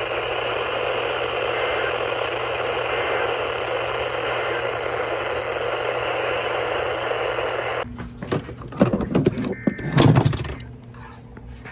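Steady radio static hiss, cut off suddenly about eight seconds in. A couple of seconds of irregular clicks and crackle follow, then a faint steady tone.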